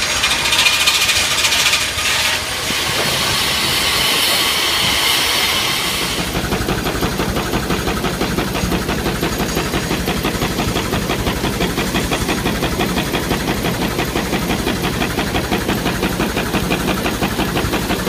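Steam engine powering a sawmill: a loud hiss of escaping steam for the first few seconds, then a steady rhythmic running beat of about two to three pulses a second.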